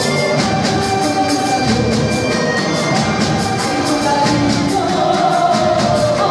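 Live band playing an upbeat popular song: accordion, electric guitar and drum kit, with a woman singing, over a steady, quick percussion beat.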